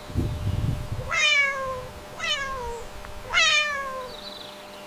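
Domestic cat meowing three times, about a second apart, each meow falling in pitch, after a short low rumble at the start.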